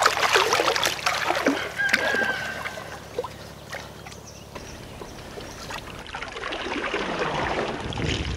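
Lake water splashing as a landed carp is returned from a wet sling, busiest in the first few seconds. Then a steadier rush of water streaming off the sling's mesh as it is lifted out of the lake.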